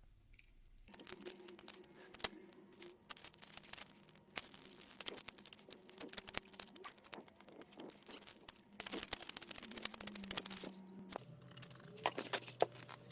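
A vinyl decal being worked off a RockShox Zeb fork lower by hand: irregular scratching and ticking, with the sticker tearing and crinkling as it comes away.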